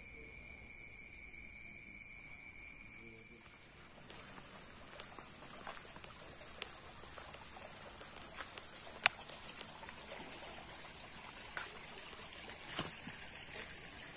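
Night insects trilling in two steady high pitches; the lower trill stops after about three seconds. A single sharp click comes about nine seconds in.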